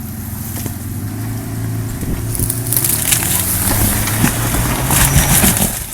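Off-road vehicle's engine pulling steadily under load while crawling up a rock, with the tyres crunching and grinding over rock and gravel. The crunching grows louder from about two seconds in, with scattered cracks and pops.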